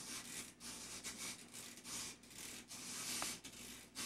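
Rhythmic rubbing or scraping, short strokes about two or three a second.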